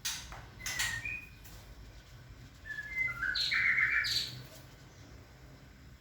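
White-rumped shamas calling: short chirps and brief whistled notes in the first second, then a louder run of notes and harsh chirps from about three to four seconds in.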